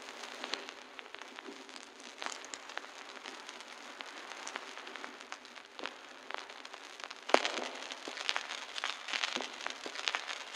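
Vinyl record surface noise with no music: a steady hiss full of crackle and scattered pops, with one louder pop about seven seconds in.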